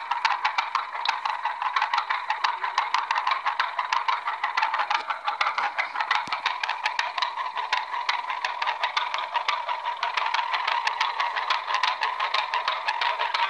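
Tractor engine sound from a small speaker standing in for a running John Deere A: a rapid, steady popping clatter, thin and without any low rumble.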